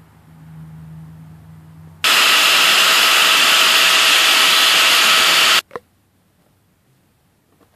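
Grinder grinding the tip of a steel nail, a loud, even hiss. It starts abruptly about two seconds in and cuts off sharply about three and a half seconds later, followed by a single click. A faint low hum comes before it.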